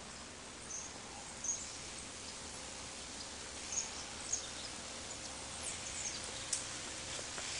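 Outdoor ambience: a steady faint hiss with a few short, high chirps and ticks scattered through it.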